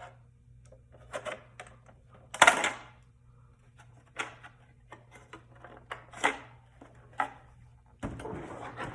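Sharp plastic clicks and knocks as a plastic cover is pried off a car armrest console with a trim tool, its retaining clips letting go. The loudest snap comes about two and a half seconds in, with a brief rustle near the end.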